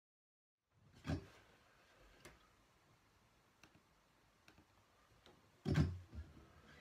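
Faint scattered clicks and knocks of handling in a small room, with a louder low thump near the end as someone moves about with an acoustic guitar.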